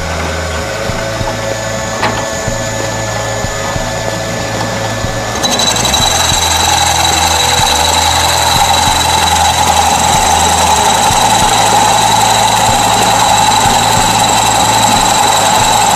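Bench drill press running a flat-bladed cutter that bores a wide, shallow round recess into a wooden board. It grows louder about five seconds in as the cutter bites into the wood, then holds steady.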